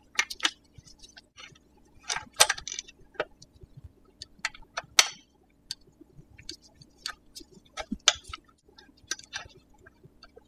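A 5 mm T-handle Allen wrench loosening the steel mounting bolts of a Tektro hydraulic disc brake caliper: a scattered series of small metallic clicks and clinks.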